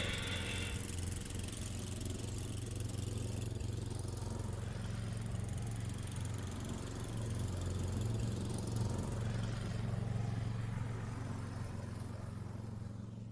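Snowblower's small gas engine running steadily, growing a little louder about eight seconds in and fading near the end.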